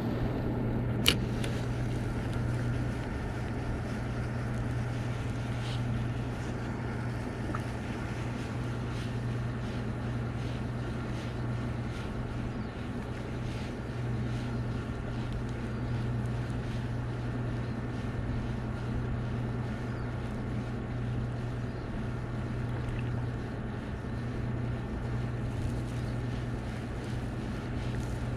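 A steady low mechanical hum, with one sharp click about a second in.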